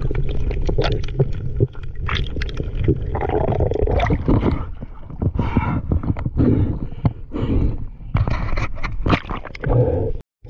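Water gurgling and sloshing around a camera moving underwater and breaking the surface, with a steady low rumble and many small clicks and knocks. The sound cuts out abruptly for a moment just before the end.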